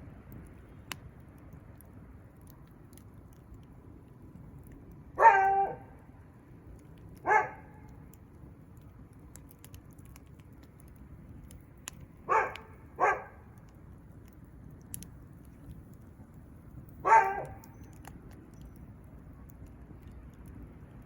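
A dog barking: five single barks spread over about twelve seconds, two of them close together. Underneath is a low steady background with a few faint clicks, as from a crackling wood fire.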